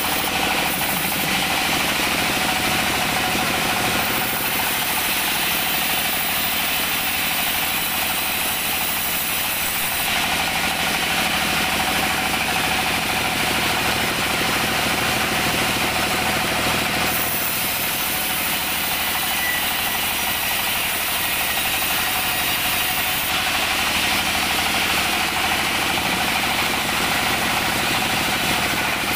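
Band saw running steadily while its blade rips lengthwise through teak boards. A hissing cut sound rises over the machine hum three times as the blade passes through the wood: in the first few seconds, again from about ten seconds in, and again near the end.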